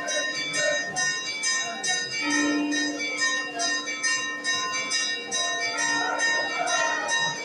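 Bells ringing rapidly and rhythmically, struck about two to three times a second, their ringing tones overlapping into a continuous peal.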